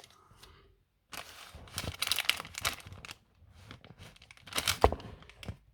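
Rustling and crinkling as things are handled on a workbench, in two stretches of irregular noise, with one sharp knock about five seconds in.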